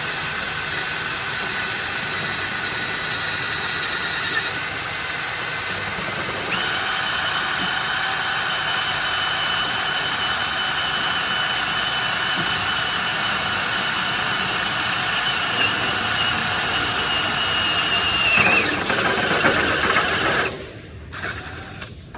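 Power drill running under load, drilling a hole: a steady whine over a rushing noise that shifts pitch about six seconds in, then winds down and stops near the end.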